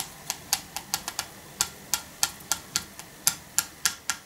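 Light, sharp clicking taps on a plastic formula measuring scoop, a quick irregular run of about four a second, as milk powder is knocked through the openings in the scoop's bottom.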